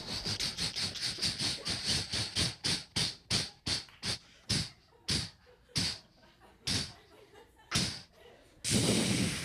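Vocal imitation of a steam train chugging: short 'chh' puffs, about five a second at first, slowing steadily to about one a second until they stop. Audience applause breaks out near the end.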